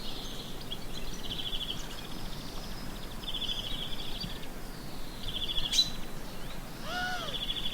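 Birds singing: short rapid trills repeated about five times, with a lower, arched call near the end and a single sharp click a little before the end. Steady street background noise underneath.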